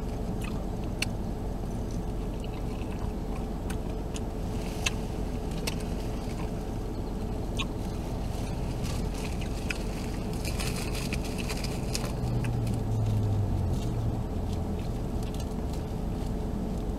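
Steady low hum inside a car cabin with a faint steady tone, over which come scattered small clicks and rustles of eating a steamed bun from a napkin; a brief rustle about ten seconds in and a low murmur soon after.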